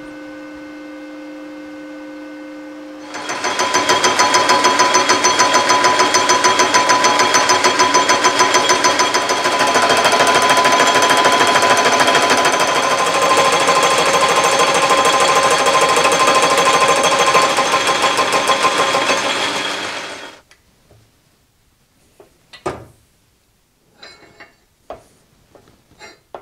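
Metal lathe spinning a welded steel flat-belt pulley: a steady running hum at first, then from about three seconds in the tool bit cutting the pulley's edge with a loud, rapidly pulsing scrape that cuts off about twenty seconds in. A few light knocks of the workpiece being handled follow near the end.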